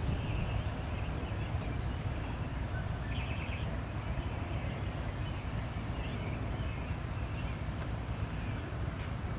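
Steady low outdoor rumble with faint, scattered high bird chirps and a short rapid trill about three seconds in.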